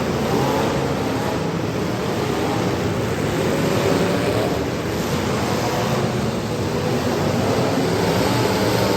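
Demolition derby cars' engines running together in a dense, steady din, their pitch wavering as they rev.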